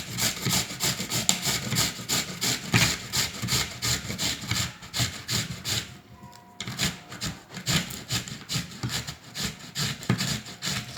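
A raw turnip being grated on a hand grater in quick, even strokes, with a short pause about six seconds in.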